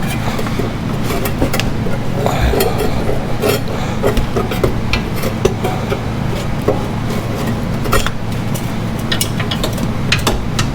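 Irregular metallic clinks and knocks of an aftermarket exhaust pipe being maneuvered and lined up against the underside of the vehicle, over a steady low hum.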